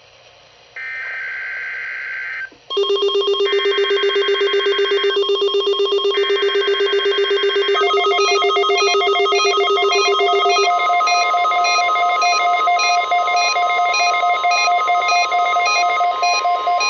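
Weather radio Emergency Alert System test signal: three short buzzy bursts of SAME header data tones. Under the bursts, a loud, fast-pulsing alarm starts about three seconds in. Repeating high beeps join partway through, and from about ten seconds in a steady warning alarm tone sounds with them.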